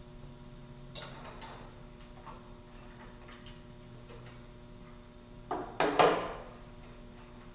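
Metal clicks and knocks as a metal block is handled and set in place on a milling machine: two sharp ringing knocks about a second in, then a louder clatter of several knocks about five and a half seconds in. A steady electrical hum runs underneath.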